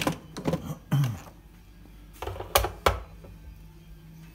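Three sharp clicks and knocks in quick succession about two and a half seconds in, from kitchen items being handled at the counter while cooking oil goes into a multicooker pot, followed by a faint steady hum.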